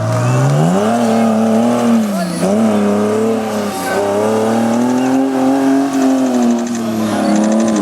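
Off-road buggy engine revving hard under throttle. Its pitch climbs, holds high with a few brief dips, climbs again and sinks near the end.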